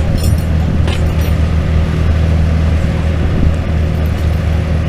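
Vintage farm tractor engine running steadily at low speed, a deep even drone with no revving.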